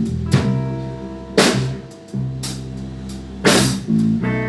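A blues band plays an instrumental stretch between sung lines: bass and guitar hold sustained notes, and the drum kit punctuates them with a few loud hits.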